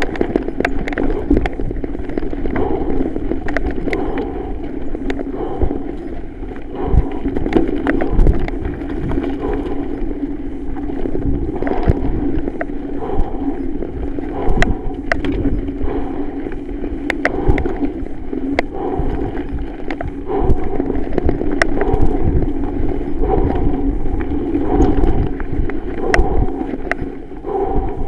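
Norco Range 7.1 mountain bike ridden over a rough dirt trail: a continuous rumble and rattle of tyres and bike over the ground, broken by frequent sharp clacks and knocks as it hits bumps, rocks and roots.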